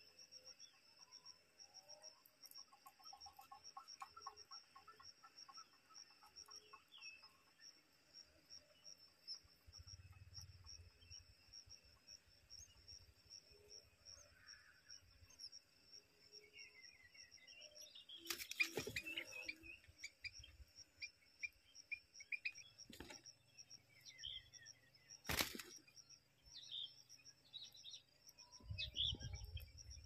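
Faint, steady rapid trilling of crickets, with a run of soft bird chirps a little past the middle and a few brief knocks or rustles.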